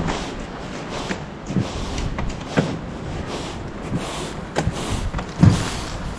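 Irregular knocks and thumps over a steady background hiss, the loudest thump about five and a half seconds in.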